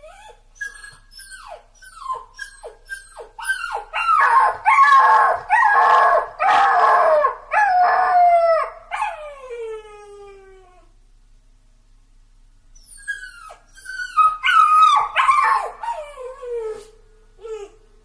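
A puppy crying in a series of high-pitched cries, each falling in pitch. Short cries build into longer, louder ones, the last trailing off in a long falling cry. After a pause of about two seconds, a second bout of cries follows.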